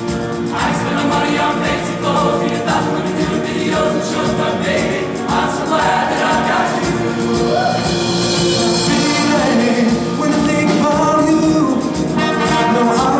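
Men's show choir singing a choreographed number in harmony, backed by a live band with brass.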